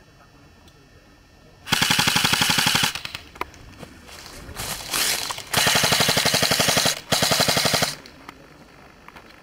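M4-style airsoft rifle firing full-auto in three rapid bursts: one about two seconds in, then a longer burst followed at once by a shorter one. Between the bursts there is fainter rapid fire.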